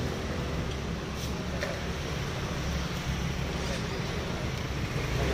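Steady street traffic noise with motor scooters passing close by, over faint background voices, with a few light clicks.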